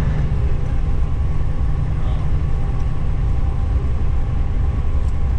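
Semi truck driving down the road, heard inside the cab: a steady, loud low drone of engine and road noise.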